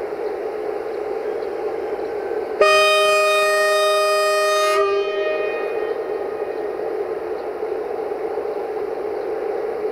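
Electric locomotive's horn sounding one blast of about two seconds, a few seconds in, over the steady drone of the train drawing into the station.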